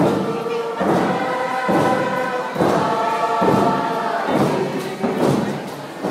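A group of voices singing together over a steady drum beat, about one beat a second.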